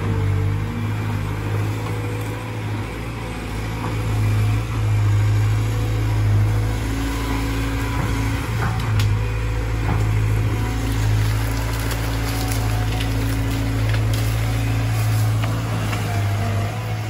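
Caterpillar 320 GC hydraulic excavator's four-cylinder diesel engine running steadily as the machine digs and swings in the mud, a constant low drone with a few light knocks.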